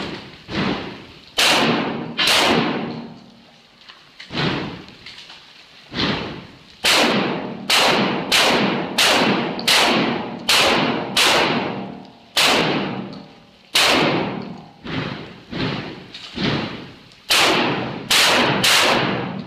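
Shotgun fired in rapid strings, about twenty loud shots, often roughly two a second, with a brief lull a few seconds in. Each shot rings on in the echo of a roofed shooting bay.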